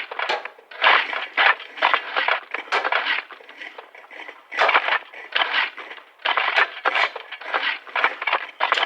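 Several shovels digging soil some way off, the blades scraping into earth in quick, irregular, overlapping strokes, with a lull of about a second a little before the middle.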